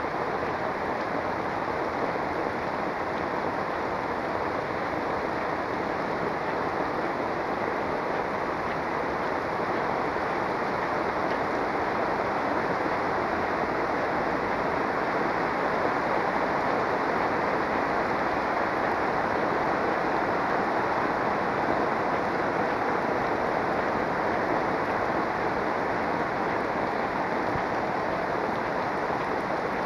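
Heavy rain falling steadily, a dense, even patter on pavement and roofs that swells a little louder midway through.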